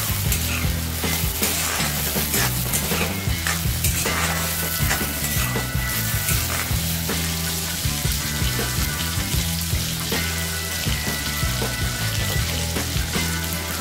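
Tomatoes and onions sizzling in hot oil in a wok, with a steady hiss and a spatula scraping and clicking against the pan as the vegetables are stirred.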